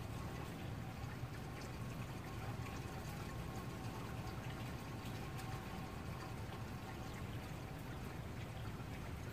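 Steady rain falling, with scattered drops ticking on nearby surfaces and a faint steady hum underneath.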